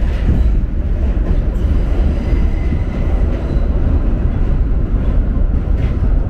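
New York City subway train running, heard from inside the car: a steady loud rumble, with a faint high wheel squeal a little past two seconds in.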